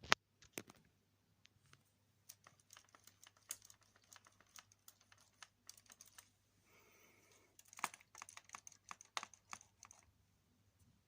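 Light, irregular clicking and tapping of small hard parts, coming in flurries, busiest about eight seconds in, with a brief soft hiss just before.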